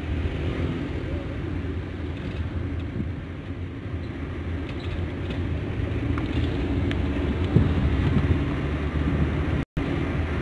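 Steady low rumble of road and engine noise inside a moving car's cabin, with a few faint light rattles. The sound drops out for a moment near the end.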